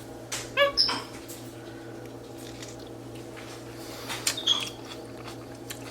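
Capuchin monkey mashing and eating a tomatillo: wet squishing and clicking, with a short high-pitched call about half a second in and another brief one near the end. A steady low hum runs beneath.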